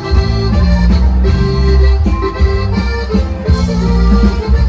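Live regional Mexican corrido band playing an instrumental passage: an accordion melody over a heavy, pulsing bass line.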